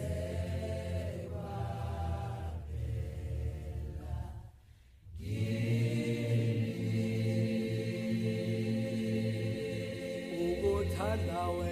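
A man singing a slow gospel hymn in a chant-like style, with long held notes over a steady low backing. The singing breaks off briefly about four and a half seconds in, and the notes waver and slide near the end.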